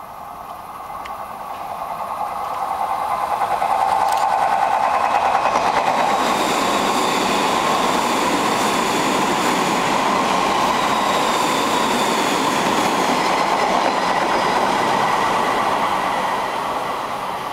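Odakyu 1000-series ten-car electric train running through a station without stopping. Its wheel-on-rail noise rises over the first few seconds as it approaches, stays loud while the cars go past, and eases off near the end. A thin high whine rides over it through the middle of the pass.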